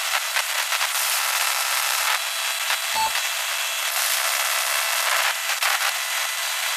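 Radio static hissing and crackling, as of an incoming transmission, with one short beep about three seconds in.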